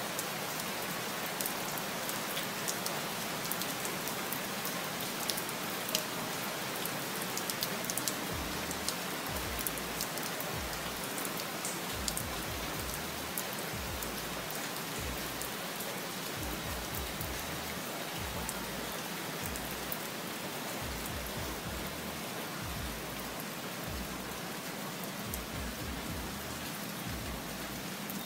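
Steady rain falling, with many small drops ticking on nearby surfaces, most often in the first half.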